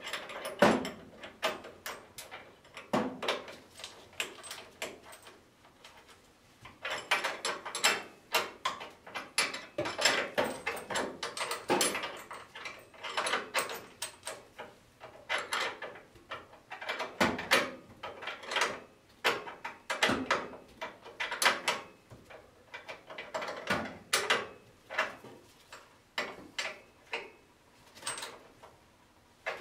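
Hand wrench clinking and knocking on the nut and steel of a front shock absorber mount under a 1957 Chevy 3100 pickup: irregular metallic clicks in quick clusters with short pauses, as the nut is worked by hand.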